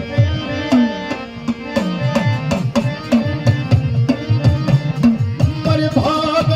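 Instrumental break in a Gujarati dakla folk song: a hand drum beats a steady, quick rhythm with low strokes that bend in pitch, over a held note. About five and a half seconds in, the held note stops and a brighter melody line comes in.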